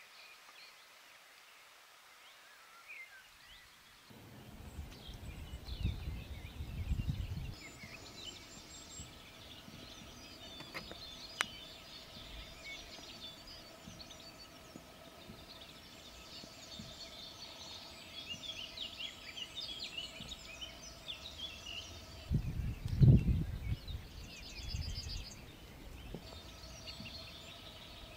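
Songbirds chirping and singing in the background, with two spells of low rumbling noise, about six seconds in and again just after twenty seconds in; the second is the loudest.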